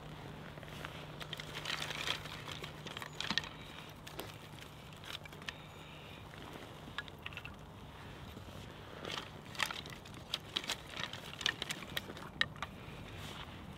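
Small kindling fire crackling as feather sticks burn between two split logs, with dry twigs clicking and snapping as they are laid over the flame. The sharp clicks come in two clusters, one just after the start and a denser one in the second half.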